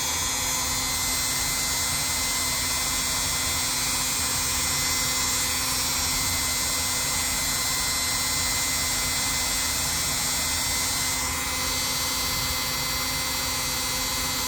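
A small electric power tool's motor running steadily with a constant whine, dipping briefly about eleven seconds in.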